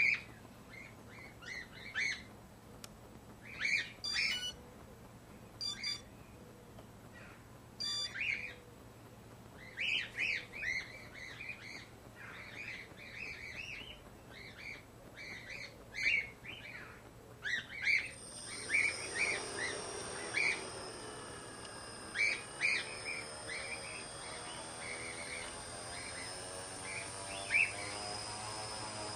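Small birds chirping again and again. About two-thirds of the way in, the tricopter's electric motors spin up and keep running, adding a steady whine and propeller whoosh whose pitch drifts slightly up and down.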